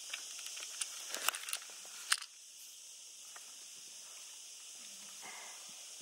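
Camera being handled and set down, a few sharp clicks and knocks in the first two seconds, then a steady high hiss of outdoor background.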